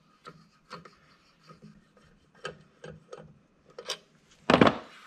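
Small, irregular clicks and scrapes of a bolt being turned out of a CVT clutch by hand, with one much louder knock about four and a half seconds in.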